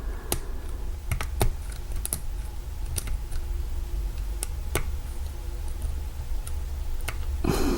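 Lock pick and tension wrench working in an old, seized Kwikset door knob cylinder: irregular sharp metallic clicks as the pick is worked against the pins, over a steady low hum.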